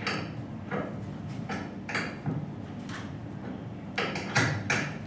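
Irregular metallic clinks and knocks from tools and parts being handled during an air-conditioner repair, about eight in five seconds, over a low steady hum.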